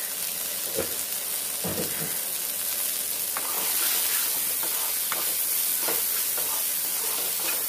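Sliced onions, carrots and peas sizzling in oil in a non-stick kadhai, stirred with a wooden spatula that gives scattered soft taps and scrapes against the pan.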